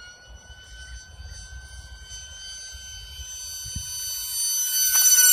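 Sphinx FPV race wing's electric motor and propeller whining steadily, growing louder and rising slightly in pitch as the wing flies in toward the listener.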